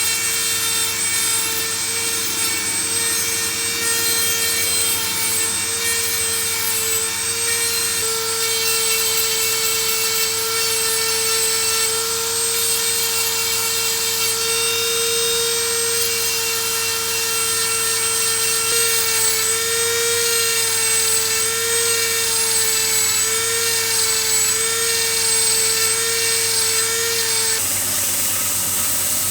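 An electric power tool's motor running steadily with a high, slightly wavering whine, as the steel of an adjustable wrench is ground and polished against it. The sound changes abruptly near the end.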